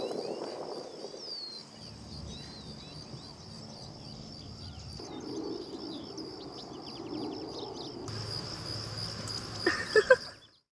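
Grassland ambience: a steady high-pitched insect drone with scattered bird chirps. Near the end come two short loud sounds, then the sound cuts off.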